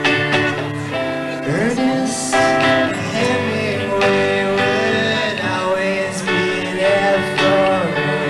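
Acoustic guitar strummed in chords, with a singing voice that comes in with gliding, wavering notes about a second and a half in.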